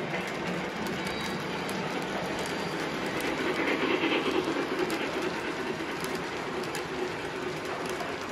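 Model train running along its track, wheels clicking over the rail joints, growing louder as it passes close by about halfway through.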